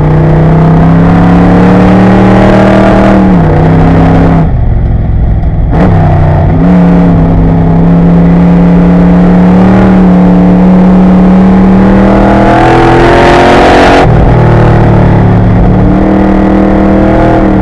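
Corvette Grand Sport race car's V8 running hard under racing load, heard from inside the car. The pitch climbs, backs off for about a second and a half a little past four seconds in, then comes back on and holds steady. It climbs again to a peak about fourteen seconds in and drops suddenly, as the throttle is lifted or a gear changed.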